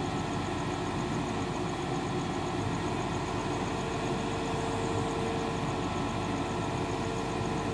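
Volvo EC210 long-reach excavator's diesel engine running steadily as a trailer is backed under its raised tracks for loading. A steady whine joins about halfway through.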